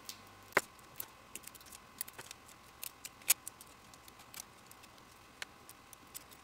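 Small scissors snipping through a printed sugar sheet, cutting out butterfly shapes: irregular sharp snips, the loudest about half a second in and again just after three seconds.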